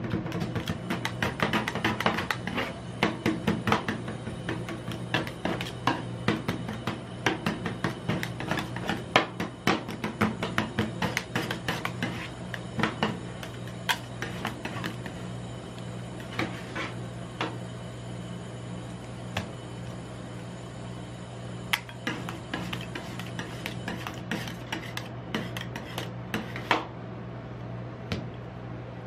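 Metal spatulas tapping, chopping and scraping ice cream on the frozen steel plate of a rolled-ice-cream pan, with a steady low hum underneath. The chopping is rapid at first, thins out about halfway, and stops near the end.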